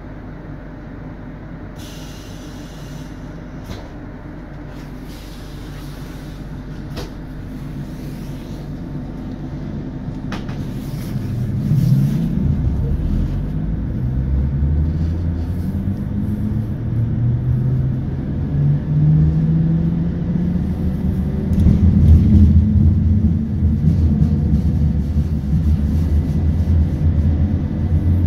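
ABB UBp electric train with thyristor power control pulling away and gaining speed. About halfway through, a pitched motor whine rises over the rumble of the running gear, steps back down and climbs again as it accelerates.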